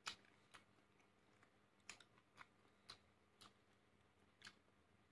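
Faint chewing with closed lips: a handful of short, wet mouth clicks and smacks, spaced roughly half a second to a second apart, against near silence.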